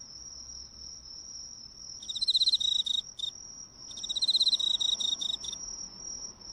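Cricket singing: two trills of rapid chirping pulses, each about a second and a half long, at about two and four seconds in, over a steady high-pitched note that runs underneath.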